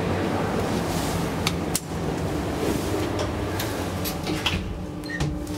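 1998 KONE elevator's car doors sliding shut, with several sharp clicks and knocks from the door mechanism over a steady low hum.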